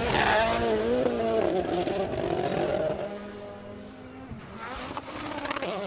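Rally car engine revving hard, its pitch rising and falling as it passes close by. It fades away about three seconds in, and an engine note rises again near the end.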